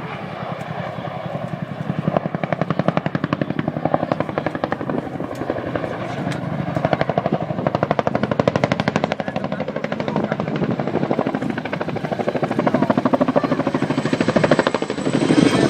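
Boeing Chinook tandem-rotor helicopter flying a display manoeuvre: loud, rapid, even rotor blade slap over the turbine noise. It gets louder about two seconds in.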